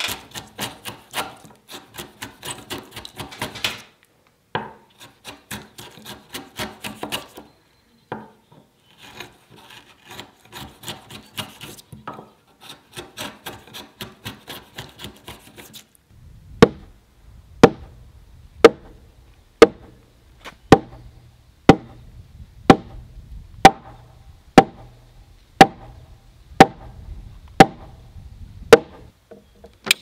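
A framing chisel cutting a mortise in a squared timber. It starts with quick, rapid crackling cuts and scraping through the wood fibres. From about halfway it changes to a steady run of sharp knocks, about one a second.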